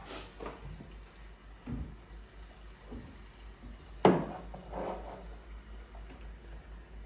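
Kitchen handling noises: a few light knocks and clatters, with one sharp, much louder knock about four seconds in that rings briefly.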